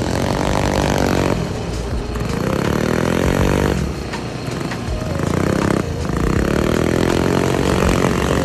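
Drift go-kart's small engine revving hard in repeated climbs. Each rise in pitch lasts about two seconds and then drops off as the throttle is lifted.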